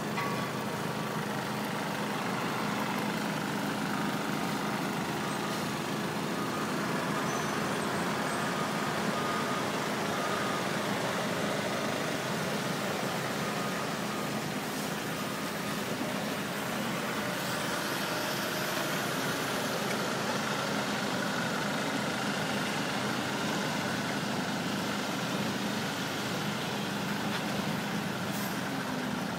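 Diesel engines of a tanker truck and a Case skid-steer loader running steadily while working in shallow floodwater. A constant low hum sits under a noisy rush.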